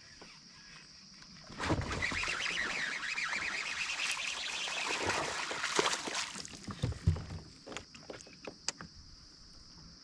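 A steady high drone of insects, with a few seconds of sloshing water at the kayak starting about one and a half seconds in, then a few light knocks of gear against the hull.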